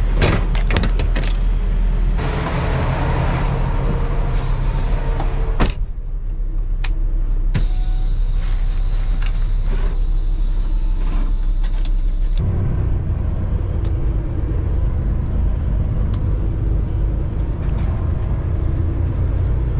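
Diesel engine of a Peterbilt semi-truck running steadily, with metal clanks near the start and a sharp bang about six seconds in. A steady hiss follows for about five seconds, then the engine runs louder as the truck pulls away.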